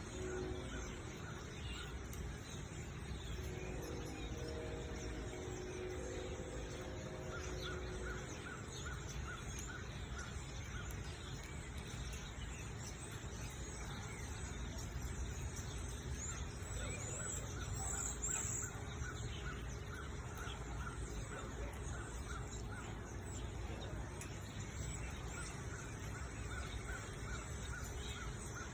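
A flock of migrating birds chattering and calling steadily, with runs of quick repeated calls in the middle and later on.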